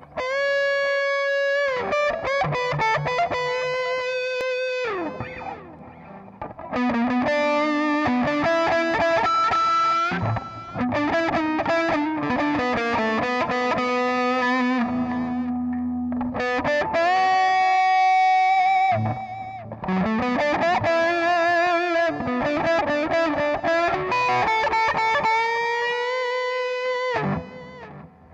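Electric guitar played through a Digitech RP55 modeling processor on a crunch/overdrive patch: a slow, single-note lead melody of long sustained notes with string bends, slides and vibrato, broken by short pauses between phrases.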